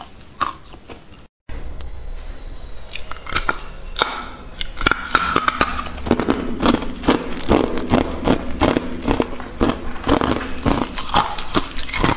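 Close-miked cracking and crunching of hard ice being bitten and chewed. The sound cuts out briefly about a second in, and the crunches come thick and fast from about halfway through.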